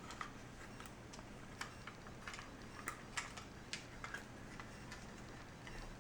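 Light, irregular clicks and taps of small plastic parts as a compact action camera and its clear housing are handled, about a dozen small clicks spread unevenly.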